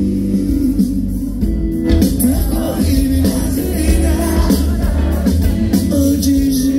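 Live band performance: a male singer singing into a microphone over drums, bass and electric guitar.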